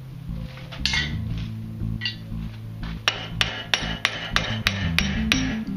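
Hand hammer striking a red-hot iron bar clamped in a bench vise, over background music: a few scattered blows at first, then from about three seconds in a steady run of about three blows a second.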